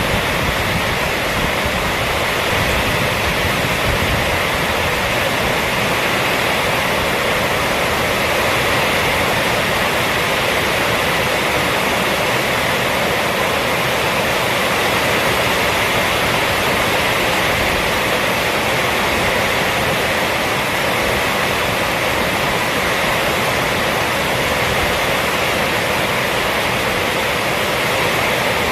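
Heavy rain falling steadily on a roof: a dense, even hiss with no single drops or gusts standing out.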